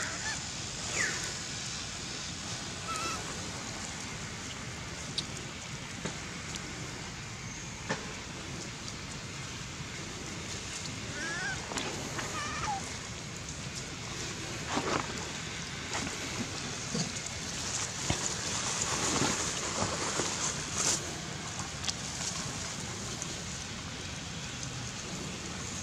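Outdoor ambience: a steady hiss, with a few short high chirps or squeaks and scattered light clicks and rustles.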